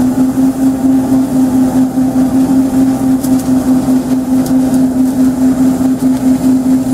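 BARGAM V-Train TRS30 grape harvester running at steady high speed: a strong, even hum with a quick regular pulsing.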